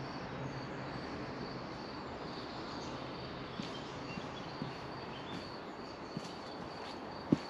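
A hiker's footsteps going down outdoor steps: a few soft, irregular steps and one sharper thud near the end, over a steady outdoor hiss with a faint high-pitched whine.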